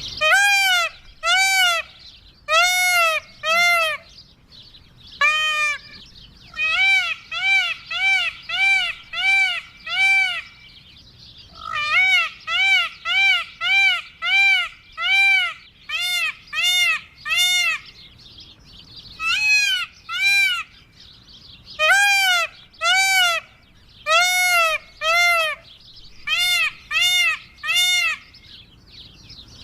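Indian peafowl (peacock) calling over and over: short, loud, nasal arched notes given in runs of two to seven, with brief pauses between runs.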